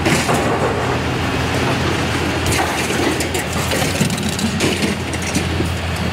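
Scrap metal being handled and unloaded, with irregular clanks and knocks over a steady engine running.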